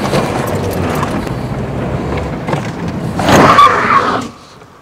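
A Toyota sedan rolling up along a dirt road, its tyres grinding over the surface. The noise grows louder about three seconds in, then cuts off as the car stops.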